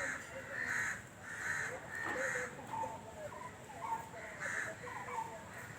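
Crows cawing, about six caws spaced through the few seconds, with fainter thin calls underneath.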